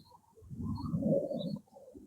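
A few short, high bird chirps over a louder, rough low sound that swells from about half a second in and fades after a second and a half.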